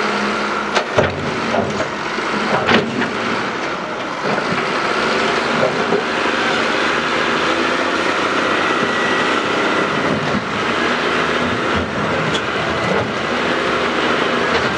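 Heavy earthmoving machine's diesel engine running steadily under load, with a few sharp knocks about a second in and again near three seconds.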